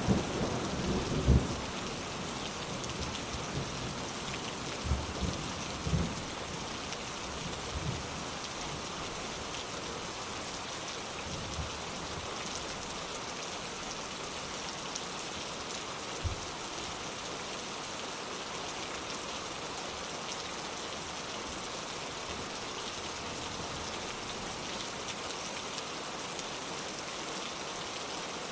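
Steady rain with thunder rumbling over the first several seconds, dying away, then a single low thud of thunder later on as the rain goes on.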